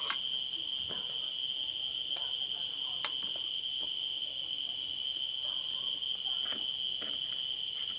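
Crickets chirring in one steady, unbroken high trill, with a few short sharp clicks over it.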